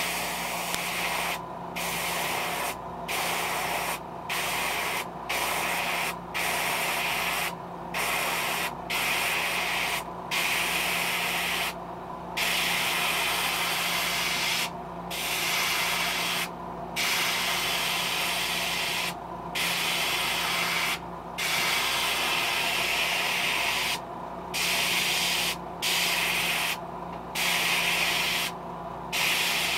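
Gravity-feed airbrush hissing in repeated sprays as the trigger is pressed and released, each spray one to two seconds long with short breaks between, over a steady low hum.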